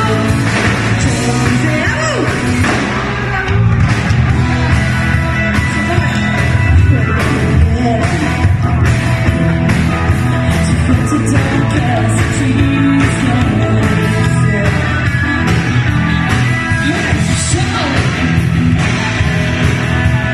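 Live rock and roll band playing loud, amplified music with drum kit and electric guitars, and a singer's voice over it.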